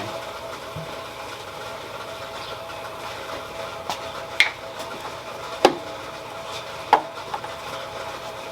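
A handful of sharp knocks and clicks of gear being handled, scattered through the middle, over the steady hum of a rock tumbler running.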